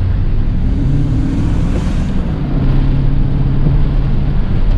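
Pickup truck engine pulling away, its note rising about a second in and then holding steady as the truck drives on, heard from inside the cab with road and wind noise through the open side window.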